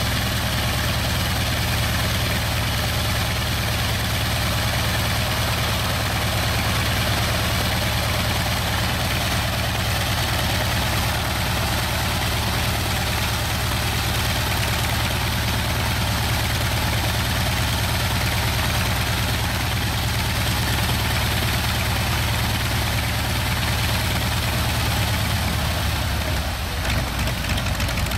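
North American T-28C Trojan's Wright R-1820 nine-cylinder radial engine idling steadily on the ground, its propeller turning slowly. The note wavers briefly near the end.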